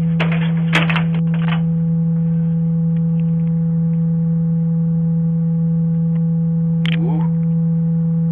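A loud, steady low-pitched hum at one unchanging pitch, with a few brief faint sounds in the first second or so and a short rising sound about seven seconds in.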